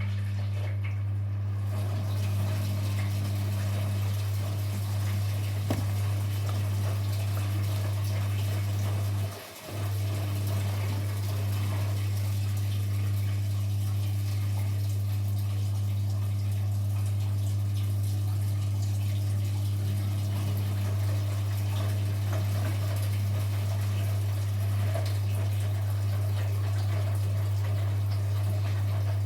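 Washing machine running with water moving through it, under a strong steady low hum that drops out for a moment about nine seconds in and then resumes.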